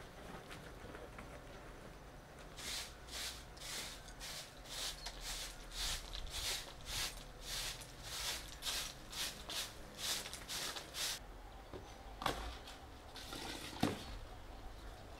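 Short straw hand broom sweeping bare dirt ground: rhythmic swishes, about two a second, that stop about eleven seconds in. Near the end come a few sharp knocks and a brief rustle as a basin is handled over the cooking pot.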